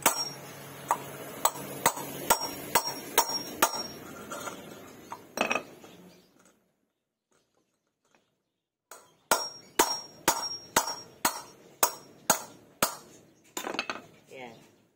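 Hammer striking a long steel Allen key used as a drift through a motorcycle front alloy wheel's hub, driving out the worn wheel bearing: sharp metallic strikes with a ringing clink, about two to three a second. They stop for a couple of seconds midway, then start again.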